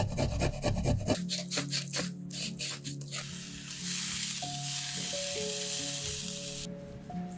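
A garlic clove rasped on a metal fine grater in rapid rhythmic strokes. After about three seconds, sliced button mushrooms sizzle in oil in a nonstick frying pan, and the sizzle cuts off suddenly near the end. Soft background music runs underneath.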